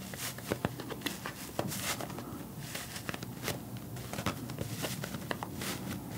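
Fingers squeezing and pulling apart a piece of pressed cotton candy close to the microphone: soft crackling and rustling with many small clicks.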